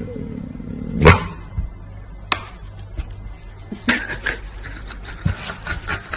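A dog and a young chimpanzee play-wrestling on a bed: scuffling, knocks and short animal sounds. The loudest is about a second in, with a run of rapid clicks and scrapes in the last two seconds.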